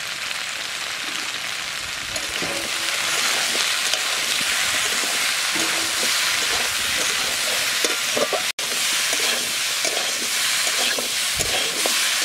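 Mixed vegetables sizzling as they fry in ghee in a kadai, stirred with a metal spatula that scrapes and knocks against the pan. The sizzle grows louder about two to three seconds in, and there is a split-second gap about eight seconds in.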